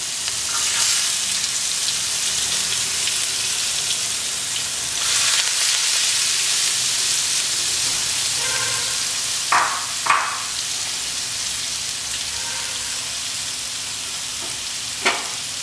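Chopped onions sizzling in hot oil in a kadai: a steady frying hiss that swells a little about five seconds in, with a few sharp clicks around ten seconds in and one near the end.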